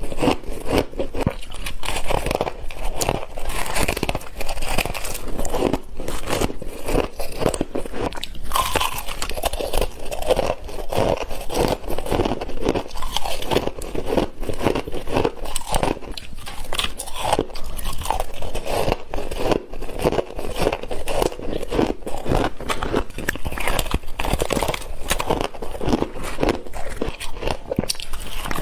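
Shaved ice being bitten and chewed, a dense, continuous run of crisp crunches.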